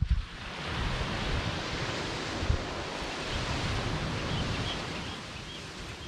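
Surf: a wave breaking and washing up the beach, a broad hiss that swells about half a second in and fades near the end. Gusts of wind rumble on the microphone underneath.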